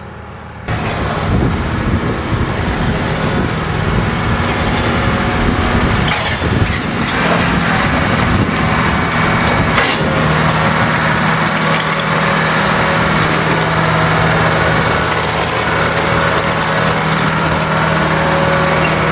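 Heavy-equipment engine running, cutting in abruptly about a second in, with a steady low hum in the second half.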